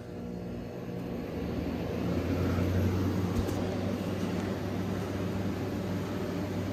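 1968 GE Thinline window air conditioner starting up: a steady hum, with fan and air noise building over the first two seconds and then running steadily. A single click comes a little over three seconds in.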